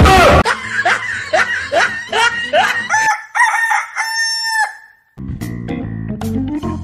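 A sudden loud burst of noise, then a chicken clucking in a run of short rising calls and a rooster crowing in one long held call that cuts off about five seconds in. Background music starts right after.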